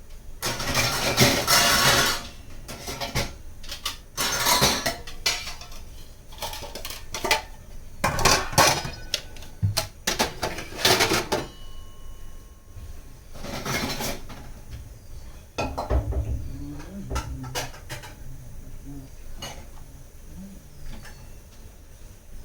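Pots, pans, dishes and cutlery clattering and clinking as they are handled in a kitchen. The clatter comes in repeated bursts for most of the time, then thins to a few light clinks near the end.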